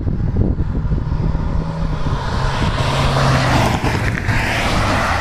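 Road vehicles passing at speed, a rushing tyre-and-engine noise that builds to a peak about four seconds in and then eases off, over a steady rumble of wind on the microphone.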